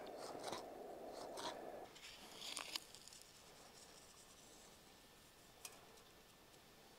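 Faint handling sounds of small fish being scored with a knife and salted: a few soft ticks and crunches, over a low hiss that stops abruptly about two seconds in.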